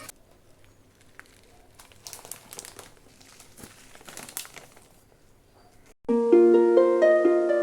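Faint crinkling and handling noises with a few light clicks. About six seconds in, loud plucked-string background music starts suddenly, a harp-like run of stepped notes.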